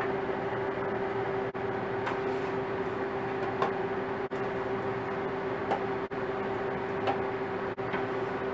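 Harvest Right freeze dryer running with a steady hum, its refrigeration already cooled down. A few light knocks as food trays are slid onto its shelves.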